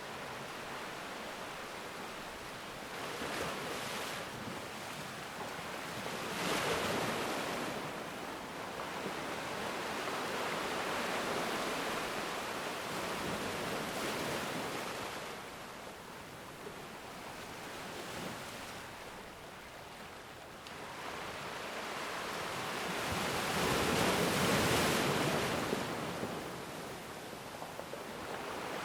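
Ocean waves breaking and washing up on a black sand beach, the surf swelling and easing in slow surges, loudest near the end.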